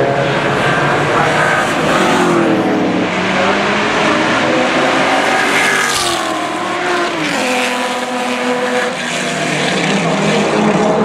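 Race car engines running at speed as several cars pass, their notes rising and falling. About halfway through, the 1971 Pontiac Trans-Am's 8.1-litre (496 ci) Pontiac V8 passes close by, its note climbing and then dropping away.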